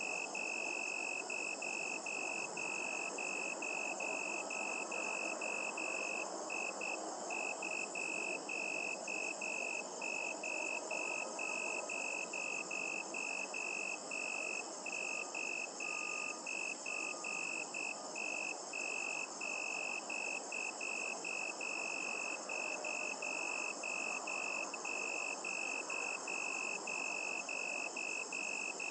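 Crickets chirping at night: a high, even chirp repeating a few times a second without pause, over a fainter, steady, higher-pitched trill and a low background hiss.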